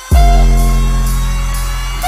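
Background music: a heavy, sustained bass note hits suddenly just after the start and holds, with a steady higher tone above it.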